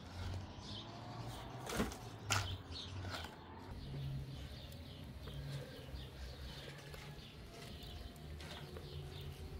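Hands squeezing and working wet grated vegetable in a plastic colander: soft squishing and rustling, with two sharp knocks about two seconds in.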